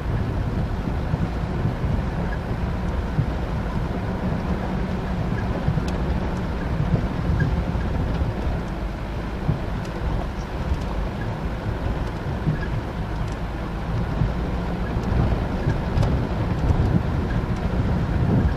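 Mitsubishi Pajero 4x4 engine running steadily while driving up a rough off-road track, with wind buffeting the microphone.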